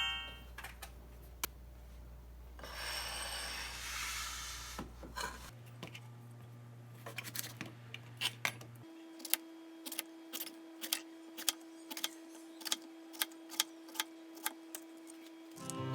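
Quiet kitchen handling sounds: a short rustling swell, then a run of light, fairly regular knocks and clinks, about two a second, over a low steady hum.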